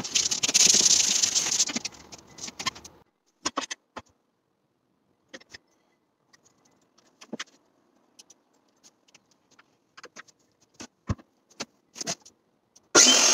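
Palm sander running on the wooden top, dying away after about three seconds. Then scattered light clicks and knocks from handling a cordless circular saw against the wood, until the saw starts up loudly right at the end.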